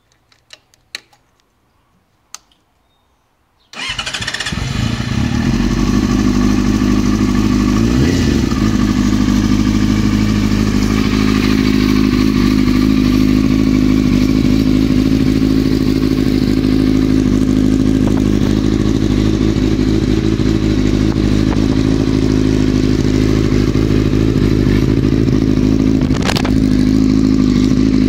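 A few small clicks, then about four seconds in the 2000 Yamaha R6's inline-four engine starts and settles into a steady idle through its Yoshimura aftermarket exhaust.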